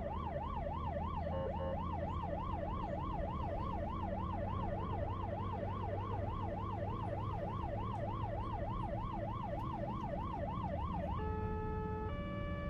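Emergency vehicle siren in a fast yelp, sweeping up and down about three times a second, over low traffic rumble. Near the end it gives way to a steady two-note hi-lo wail.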